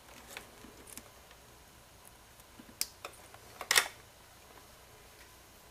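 Small clicks and handling noises of electrical wiring being worked by hand: LED light-strip leads and their plastic quick connectors being greased and plugged together. A handful of short clicks, the loudest cluster a little past two-thirds of the way through.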